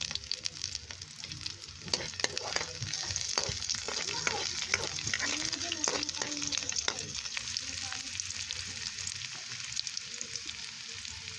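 Sliced onion and garlic sizzling in hot oil in a pan, with a spatula scraping and clicking against the pan as they are stirred, mostly in the first half.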